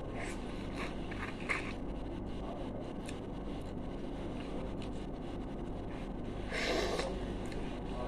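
Mouth noises of someone sucking and chewing raw lemon: small wet clicks and slurps in the first couple of seconds, then one louder, longer breathy mouth sound, about half a second long, about two-thirds of the way through, over a steady low hum.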